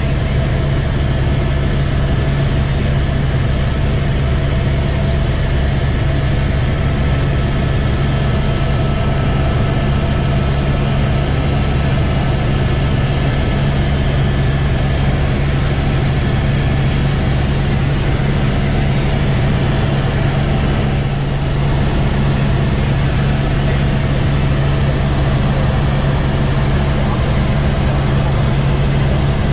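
Helicopter in flight heard from inside the cabin: a steady drone of engine and rotor, dipping slightly for a moment about two-thirds of the way through.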